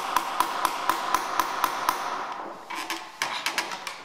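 Small hammer tapping a nail into a wooden crucifix: quick, even taps about four a second that stop about halfway through, followed by a few scattered, lighter knocks.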